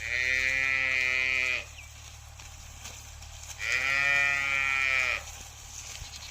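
A farm animal calls twice, each call a long, even cry of about a second and a half. The first starts at once and the second comes about two seconds after the first ends.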